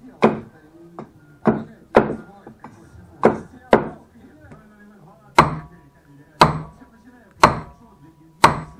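Hand tools striking wood on a chopping block, splitting short wooden furniture legs into firewood: about ten sharp blows, coming in quick pairs at first and then evenly about a second apart.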